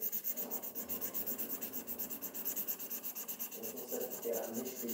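Green felt-tip marker scribbling on paper, colouring in with rapid, even back-and-forth strokes.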